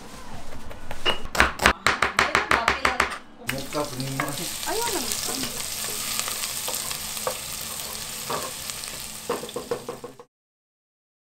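A rapid run of knife chops on a cutting board, about six a second, then food sizzling in a hot pan as it is stirred. The sizzle cuts off abruptly near the end.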